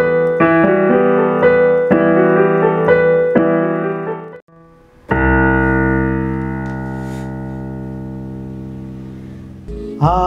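Roland E-X50 arranger keyboard playing piano chords, struck in a steady rhythm about twice a second. About halfway through the chords stop briefly, then one long chord is held and slowly dies away.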